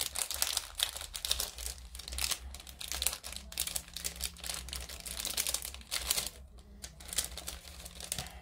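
Rummaging through a container of small hobby tools and paintbrushes: a dense, irregular run of clicks, rattles and rustling, pausing briefly about six seconds in.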